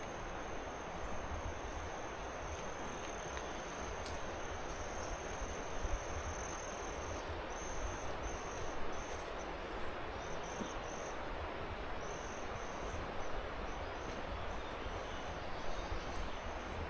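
Steady rushing of a river. Over it, an insect's high, thin call holds one pitch, then about halfway through breaks into short, regular pulses.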